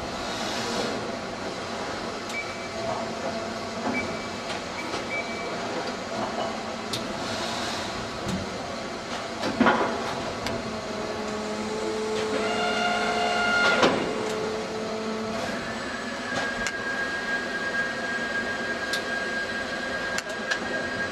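Yushin RAII-a-800S full-servo traverse take-out robot and its injection moulding machine running in a large exhibition hall: a steady mechanical din with two short hisses, a sharp knock about halfway, and a steady pitched whine for about two seconds that ends in a knock.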